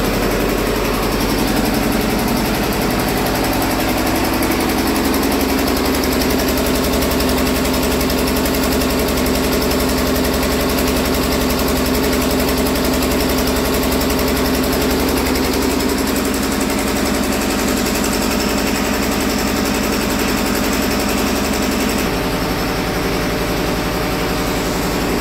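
Single-cylinder diesel engine of a generator set running steadily, a loud, even knocking beat with a deep hum; about 22 seconds in it becomes a little quieter.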